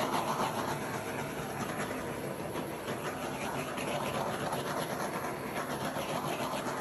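Handheld torch burning with a steady hissing rush of flame while it is passed over wet poured acrylic paint to pop air bubbles.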